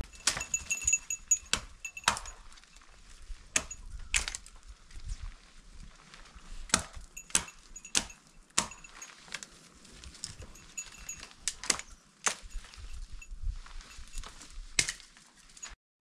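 Dry dead branches snapping as they are broken off by hand: about fifteen sharp cracks at irregular intervals.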